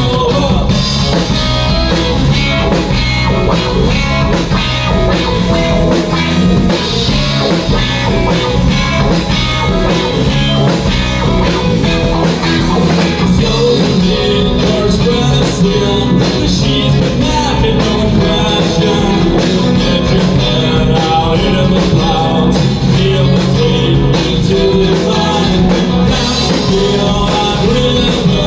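Rock music with guitar, drums and singing, playing steadily.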